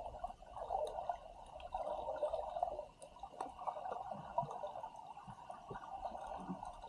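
Water gurgling and sloshing unevenly, with a few faint scattered clicks, as heard from a camera in or at the surface of the sea over a coral reef.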